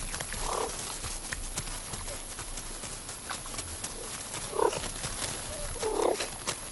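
Serval kittens giving three short calls while feeding on prey, over a steady crackle of rustling dry grass and chewing.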